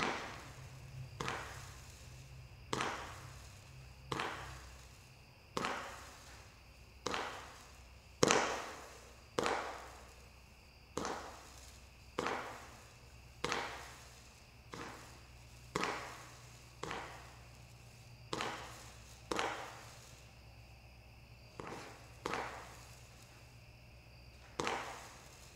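A 19-shot consumer firework cake firing its shots one at a time, about one every 1.3 seconds, each a sharp pop with a short ringing tail.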